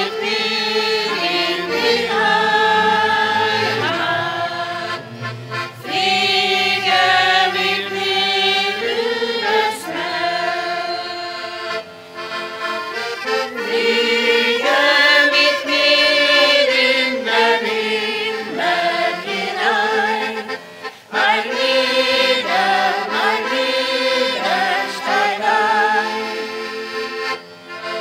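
Accordion playing a traditional German folk tune, a melody in sustained chords that changes note every second or so.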